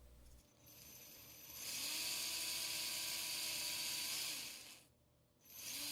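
Brushless electric motor of a 3D-printed RC car spinning up with a rising whine and a loud hissing rush from the drive. It runs steadily for a couple of seconds, winds down and stops, then starts again near the end. The drive seems to be slipping.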